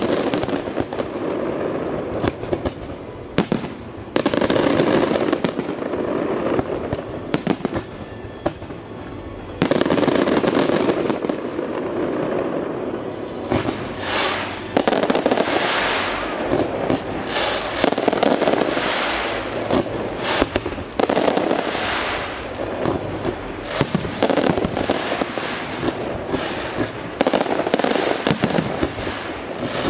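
Aerial fireworks display: a run of shell bursts with sharp bangs and crackling. The bursts become louder and denser about ten seconds in.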